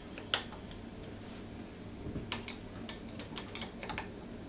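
Small sharp metallic clicks and taps of a hex key and hand tool against a cast-aluminium lathe bracket: one louder click about a third of a second in, then a quicker run of light ticks in the second half.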